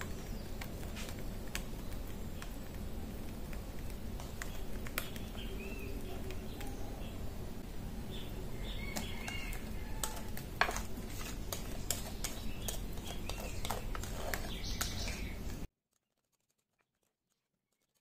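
Coconut cake batter being poured and scraped with a wire whisk from a glass bowl into an aluminium tube pan: faint scattered clicks and taps over a steady background hiss, with a few faint high chirps around the middle. The sound cuts off completely about two seconds before the end.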